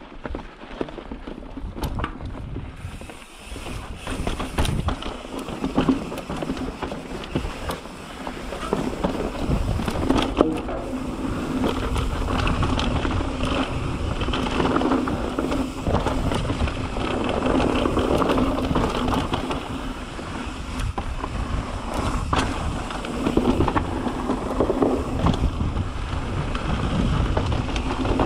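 Mountain bike riding down a dirt and rock trail, heard on the rider's GoPro: wind rushing over the microphone, tyres on loose dirt and stones, and frequent knocks and rattles from the bike over bumps, with a steady hum underneath. It gets louder about eight seconds in as the speed picks up.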